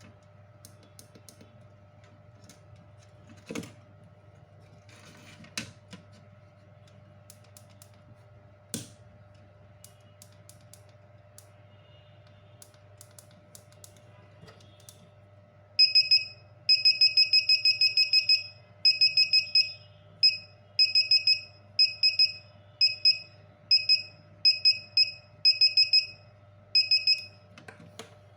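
EAS scanner's alarm buzzer beeping in a run of high-pitched beeps of uneven length, starting about halfway in and stopping shortly before the end; this is the alarm its user wants made louder. Before it, a few knocks over a low steady hum.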